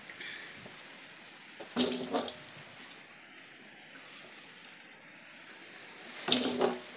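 Liquid insecticide poured from a small bottle into a blue plastic drum, splashing onto the wet drum bottom in two short spells, about two seconds in and near the end.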